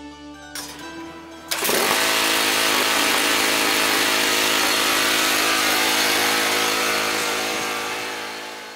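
A John Deere riding lawn tractor's engine starts with a sudden burst about a second and a half in and runs steadily at high speed, fading near the end as the tractor drives off.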